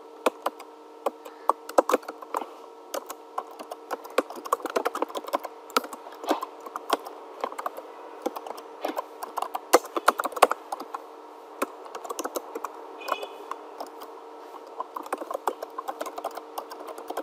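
Typing on a computer keyboard: quick, irregular key clicks with a few short pauses, over a faint steady hum.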